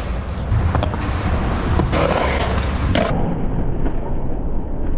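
Skateboard wheels rolling over concrete with a steady low rumble and a few light clacks of the board. A louder rough noise lasts about a second, starting around two seconds in.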